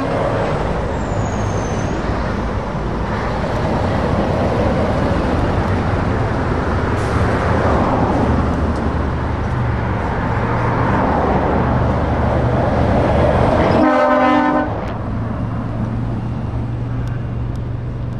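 Heavy trucks and cars driving past on a road, with diesel engines and tyre noise. About 14 seconds in, a truck's air horn gives one short blast, after which a low, steady engine drone carries on.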